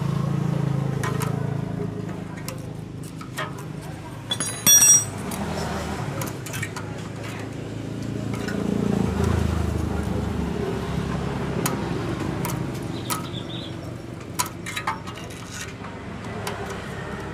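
Small metal clicks and clinks from a ring spanner and feeler-gauge blades working against the rocker arms of a Honda GX160 engine while its valve clearance is set. One loud ringing clink comes a little under five seconds in.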